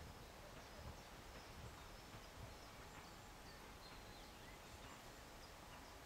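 Near silence: faint outdoor ambience with a low rumble and scattered short, high bird chirps.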